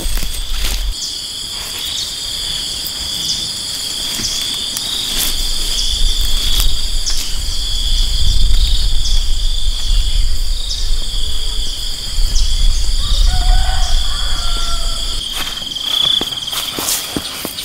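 Insects chirring in a steady chorus of high, level tones, over a low rumble that swells in the middle and scattered clicks and knocks. A brief faint call sounds about thirteen seconds in.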